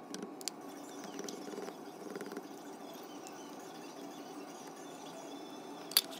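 Small plastic clicks of microcentrifuge tubes being lifted from a dry-bath heating block and set into a plastic tube rack, over a steady faint room hum. A sharper click about six seconds in, as the dry bath's clear plastic lid is shut.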